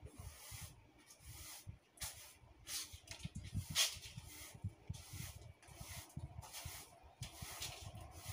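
Broom sweeping a tiled veranda floor: a run of short swishing strokes, one every half-second to second, the loudest a little before the middle, over a low, uneven rumble.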